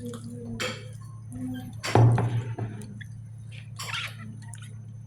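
A few brief clinks and knocks of tableware, the loudest about two seconds in, over a steady low hum.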